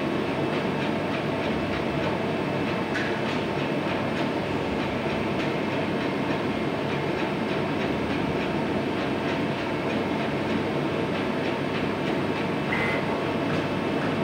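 Steady road traffic: heavy trucks running and passing, a continuous rumble with rattling. Two short high chirps sound, about three seconds in and near the end.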